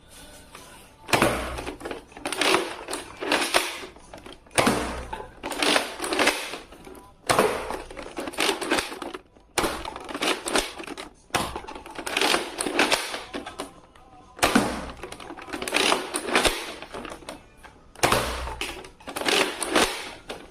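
Nerf Mega Thunderhawk toy blaster being reloaded and fired over and over: bursts of hard plastic clacks and rattles from loading and priming, ending in the shot. The cycle repeats six or seven times, with short pauses between.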